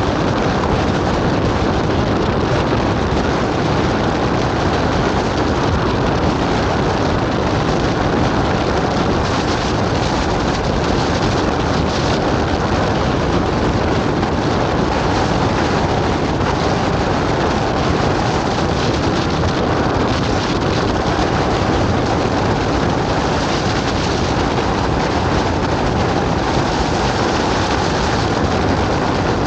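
Loud, steady wind buffeting the microphone over the running noise of a vehicle driving through a severe thunderstorm.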